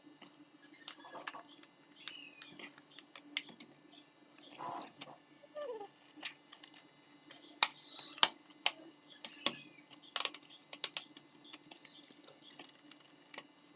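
Irregular sharp clicks and taps of plastic laptop casing and parts being handled and pried loose, with a cluster of louder clicks in the middle. A few short high chirps sound in the background.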